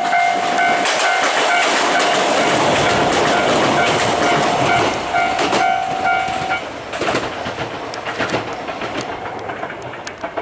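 Yoro Railway 7700 series electric train passing over a level crossing, its wheels clattering over the rail joints while the crossing's warning bell rings about twice a second. The bell stops about six and a half seconds in, the sign that the train has cleared the crossing, and the train noise then fades.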